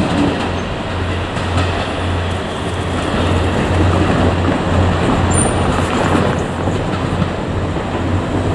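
KiHa 200 diesel railcar running on the line: a steady low diesel engine note that swells and fades slightly, under continuous rolling noise from the wheels on the rails.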